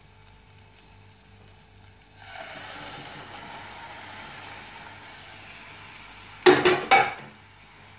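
Cooked moong dal tipped into a hot nonstick pan of fried onion-tomato masala: a steady sizzle starts about two seconds in. Near the end come a quick run of loud knocks against the pan.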